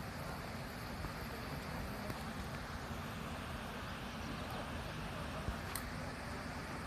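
Steady outdoor background noise with a low rumble of wind on the microphone, and a single sharp click nearly six seconds in.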